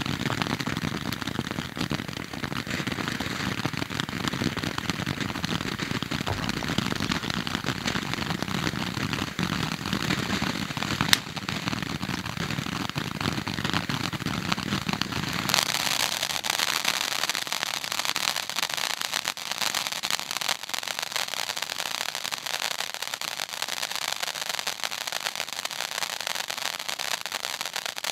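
Firework fountain burning on the ground: a steady rush packed with dense crackling pops, with one sharp crack about eleven seconds in. A little past halfway the low rushing drops away and the crackle turns sharper and brighter.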